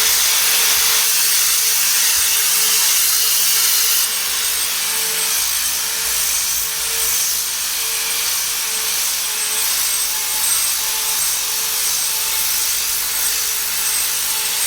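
Orbital sander running steadily on a wooden floor, sanding out low spots that a drum sander could not reach. The sound is a loud, even hiss over a steady motor hum, and it drops a little in level about four seconds in.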